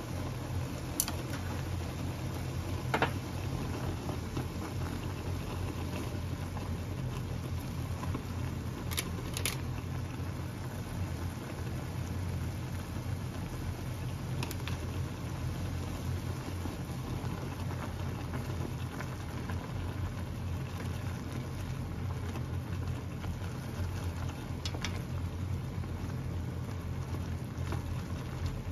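Instant ramen broth boiling in a thin aluminium ramen pot: a steady bubbling patter over a low steady hum, with a few faint sharp clicks.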